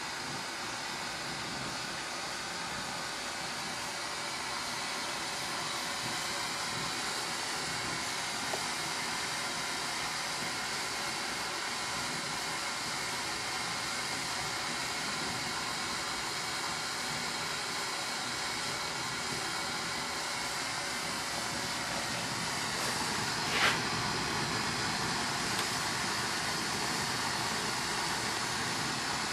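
Lampworking torch flame hissing steadily as glass is heated in it, with a single sharp tap about three-quarters of the way through.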